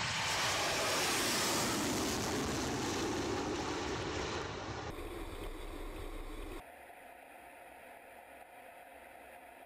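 Su-34's twin AL-31F turbofan jet engines running at takeoff power with afterburners lit: a loud, even rush. About two thirds of the way through it drops abruptly to a much quieter steady hiss.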